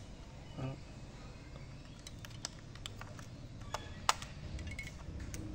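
Faint, scattered clicks and taps of AA batteries being fitted into the plastic battery compartment of a Sony Walkman TPS-L2 cassette player. The sharpest click comes about four seconds in.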